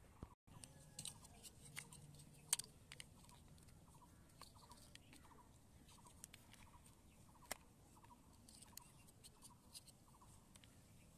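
Large plastic toy building blocks clicking and knocking as they are handled and pressed together, in scattered sharp clicks, the loudest about two and a half seconds in. Faint short chirps repeat in the background throughout.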